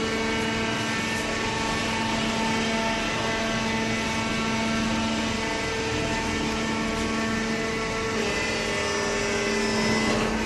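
Hydraulic baler's electric motor and pump running, a steady hum with several held tones. The tones shift about halfway through and again near the end.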